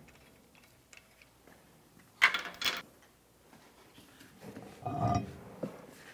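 A sharp metallic clack and brief clatter, then a low thump and scrape a couple of seconds later as a car's rear wheel and tire are pulled off the hub studs.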